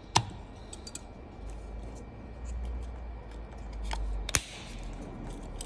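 Small sharp plastic clicks and handling noise from a BMW F-series remote key fob being put back together after a battery change: one loud click just after the start and two more about four seconds in.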